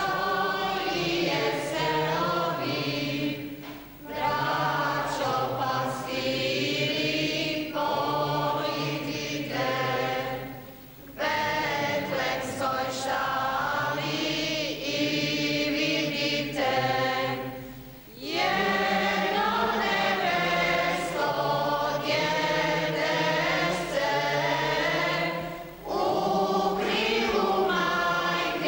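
Church congregation singing a hymn together in Croatian, many voices in long phrases with a short pause for breath about every seven seconds.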